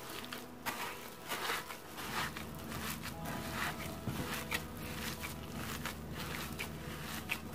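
Gloved hand kneading a soft mash of fried eggplant, onion, cheese and toasted breadcrumbs in a bowl: an irregular run of soft squishes and rustles.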